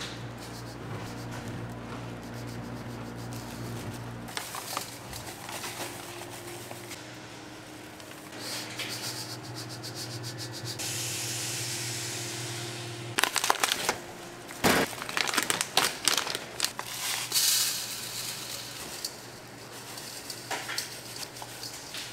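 Food-factory work sounds: a steady machine hum, a hiss lasting about two seconds, then a run of sharp clatters and knocks.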